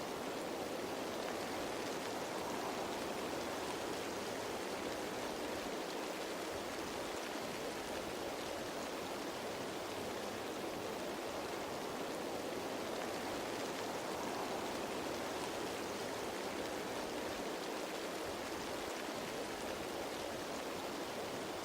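Steady rain falling on leaves, an even hiss of many raindrops with no separate drops standing out.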